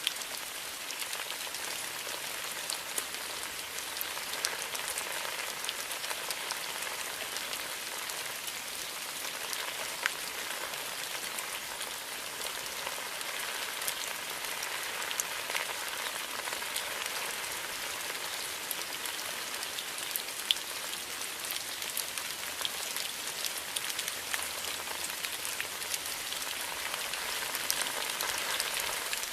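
Steady rain falling in a bamboo grove: a continuous hiss with scattered sharp ticks of individual drops landing.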